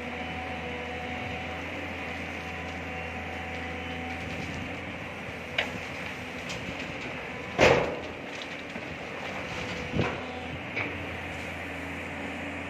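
Diesel engines of an excavator and a dump truck running steadily, with several clanks as a bucketload of soil and rock is dumped into the truck's steel bed; the loudest crash comes a little past halfway.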